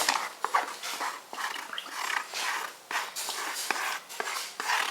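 Glue mixture and borax solution being poured together and mixed in a bowl: a run of irregular wet sloshing strokes with small clicks.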